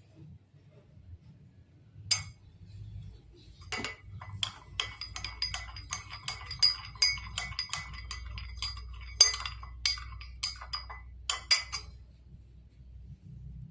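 A metal spoon stirring in a small cup, clinking against its sides about three times a second with a light ringing tone, after a single clink a couple of seconds in.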